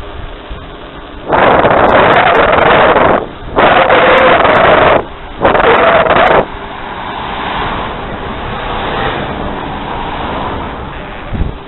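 Rushing noise on the microphone of a camera mounted on a moving bicycle: three loud bursts that cut in and out abruptly. A car then approaches and passes close by with a swelling and fading sound.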